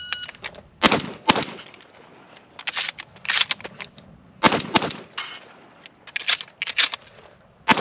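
A shot timer beeps, then a 12-gauge shotgun fires in quick pairs, with the clicks and clacks of shells being loaded and the action closing in between. This is a reload drill on a steel plate rack: two shots, reload, two shots, reload, two shots.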